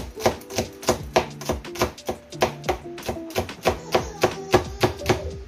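Cleaver chopping peppers on a wooden cutting board in rapid, even strokes, with background music under it.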